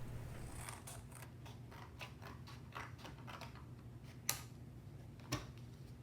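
Scissors cutting paper: faint scattered clicks and snips, with two sharper clicks about four and five seconds in.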